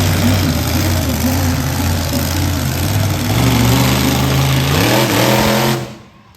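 A monster truck's engine runs loud and steady, then revs up about five seconds in. The sound drops away suddenly just before the end.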